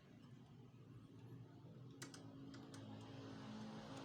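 A few faint, sharp clicks of small plastic copier parts being handled and fitted into place, clustered about two seconds in, over a faint low hum.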